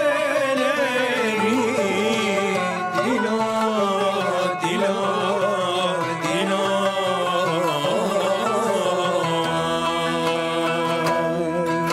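Turkish classical music played live by a small ensemble of oud, kanun and kemençe. The melody winds and bends with ornaments over steady plucked notes.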